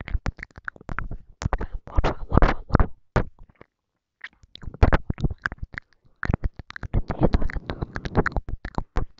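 ASMR mouth sounds close to the microphone: rapid wet clicks and smacks of lips and tongue mixed with breathy inaudible whispering, with a brief pause about four seconds in.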